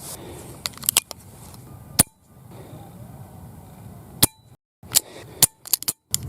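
Smith & Wesson 325PD revolver in .45 ACP firing several sharp single shots, irregularly spaced about a second or two apart, with fainter cracks in between.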